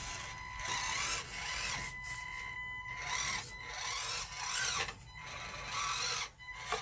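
1/24-scale micro RC crawler's small electric motor and geartrain whining as it crawls over rocks, rising and falling with the throttle and dropping out briefly a few times.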